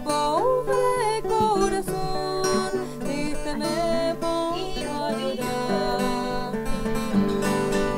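A woman singing a melody with pitch slides, over strummed acoustic guitar.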